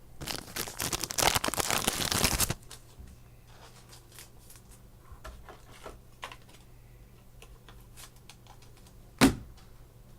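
Sports trading cards and their packaging being handled: about two and a half seconds of loud rustling and sliding at the start, then scattered light clicks and one sharp tap near the end.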